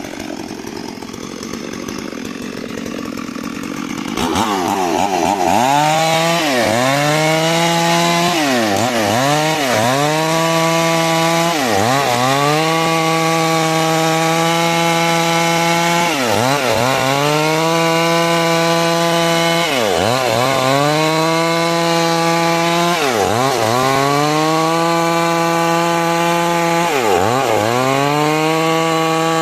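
Stihl MS 382 two-stroke chainsaw running at high revs while cutting wood. After a quieter first four seconds the engine note is steady, and every few seconds it dips sharply and climbs straight back.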